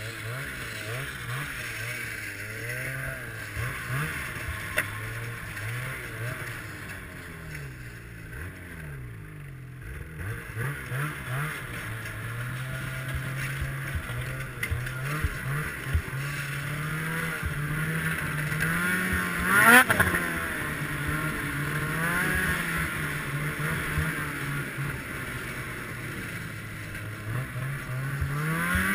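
Ski-Doo Summit X snowmobile's two-stroke engine running under way, its pitch rising and falling again and again as the throttle is worked. About two-thirds of the way through there is one sharp, short rev, the loudest moment.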